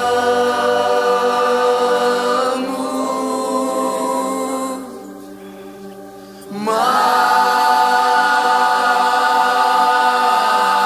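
Worship singing in Portuguese: voices holding long sustained notes in two long held chords, with a brief quieter dip about five seconds in.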